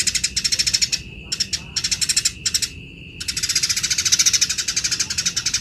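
Eurasian tree sparrow giving harsh, very rapid chattering calls, the agitated fighting chatter used as a training recording for cage birds. It comes in several short bursts, then one long burst of about two and a half seconds from the middle of the clip. A steady high-pitched whine runs beneath.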